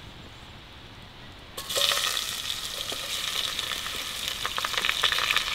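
Thin-sliced potatoes and onions going into a pot of hot oil over a campfire and frying in it. The sizzling starts suddenly about a second and a half in and goes on loud and steady, with a lot of small crackles.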